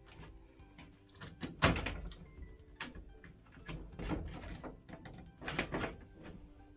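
Hands handling electrical wiring in a wall back box: twin-and-earth cable cores rustling and scraping against the box, with several irregular knocks, the loudest about one and a half seconds in.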